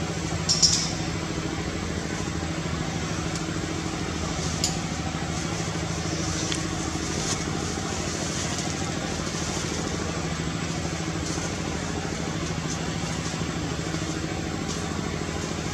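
An engine idling steadily with a low even hum, broken by a sharp click about half a second in and a smaller one a few seconds later, with faint high chirps above.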